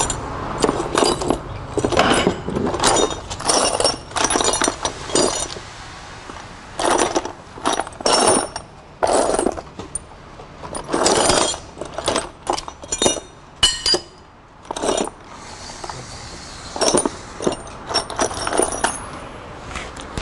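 Loose steel bolts and hand tools clinking and rattling against each other and the engine's metal parts in irregular bursts, with quieter gaps between.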